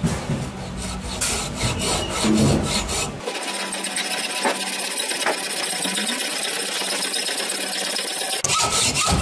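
Hacksaw cutting through the small metal cog on a NEMA 17 stepper motor's shaft, the blade rasping back and forth in repeated strokes.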